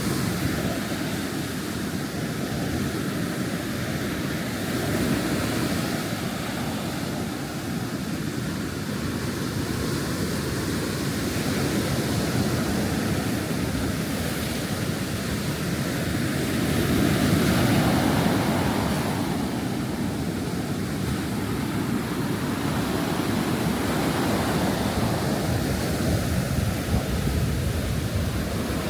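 Rough sea surf washing continuously onto a beach, a steady rushing noise that swells louder about seventeen seconds in.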